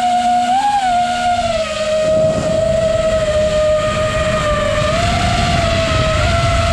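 FPV racing quadcopter's electric motors and propellers whining, the pitch shifting up and down with the throttle, heard from the camera on board. About two seconds in, a low rush of air noise joins as it climbs over the treetops.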